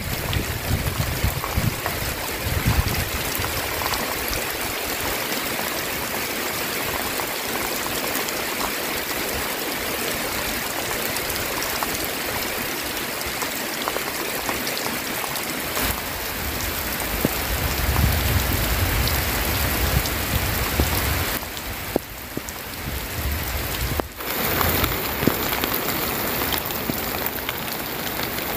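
Heavy rain pouring down steadily, a dense hiss of drops, with a low rumble on the microphone now and then.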